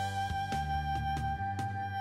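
Background instrumental music: a long held melody note over a steady bass line, with a soft beat about twice a second.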